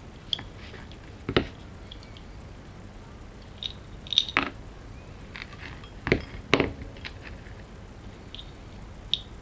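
Scattered small clicks, taps and knocks of hand-handling an airsoft rifle's trigger mechanism housing and setting needle-nose pliers down on a workbench, irregular with a few sharper knocks in the middle.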